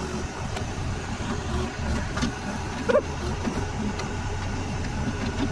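Backhoe engine running steadily with a low rumble while the machine works, with a short sharp sound, the loudest moment, about three seconds in.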